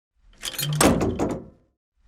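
Tank door being shut: a short build-up, then a quick cluster of heavy knocks about a second in, ringing away within about half a second.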